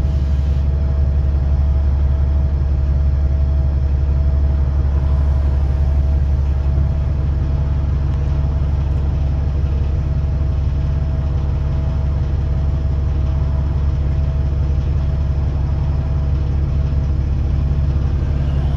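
Diesel engine of a VDL DB300 double-decker bus idling while the bus stands still, heard from inside the passenger saloon: a steady low drone with a faint constant whine above it.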